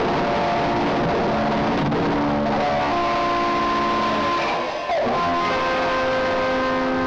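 Live rock music: loud electric guitar chords ringing out and sustaining. There is a short drop just before five seconds, then a new chord rings.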